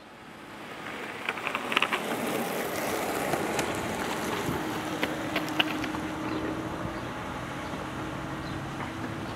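A car driving past on the street, its engine and tyre noise swelling over the first two seconds and then holding steady. A few sharp clicks come about a second and a half in and again around five seconds, and a low steady hum runs through the second half.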